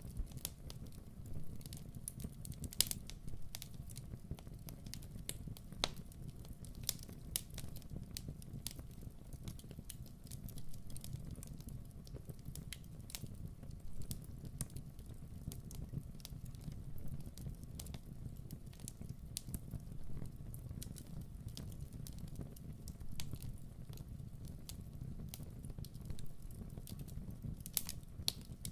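Fire crackling in a fireplace: irregular sharp pops and snaps over a low, steady rumble.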